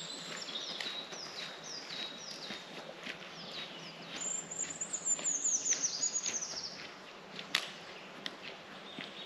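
Songbirds singing: short chirps falling in pitch repeat throughout, and a longer song of quick falling notes runs from about four seconds in. A single sharp click comes near the end.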